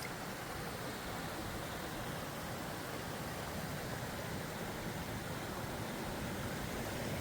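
Rain-swollen runoff water rushing steadily, an even hiss with no break.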